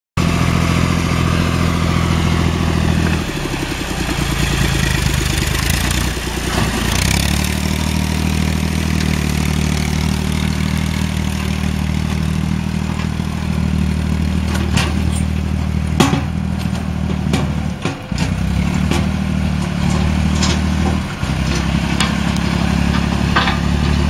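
John Deere 1020's three-cylinder diesel engine running steadily under load while the tractor works a rear scraper blade through dirt. The engine note shifts a few times, and a few sharp knocks come in the second half.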